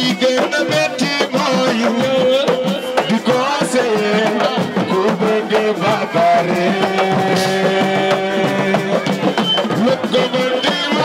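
Music with fast drumming and a sustained melody over it.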